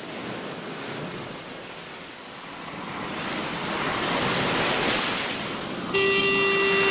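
Opening of a punk demo track: a rushing noise like surf swells and ebbs. About six seconds in, a loud, steady, buzzy held tone starts suddenly.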